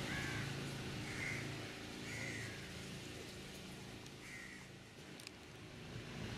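A bird calling, four short calls in the first half, over a low engine hum that fades out after about two seconds.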